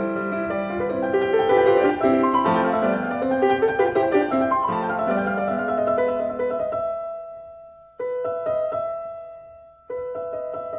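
Background piano music playing a melody, fading out twice and starting again near the end.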